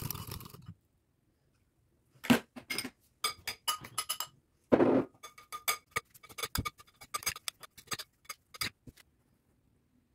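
Metal spoons clinking and scraping against a glass salad bowl as shredded carrot and apple salad is tossed: a run of quick, ringing clinks from about two seconds in until near the end, after a brief scrape at the start.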